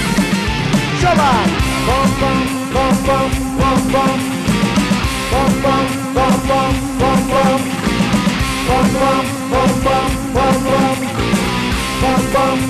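A live rock band plays an instrumental break: an electric guitar lead with repeated bent, gliding notes over bass guitar and a drum kit.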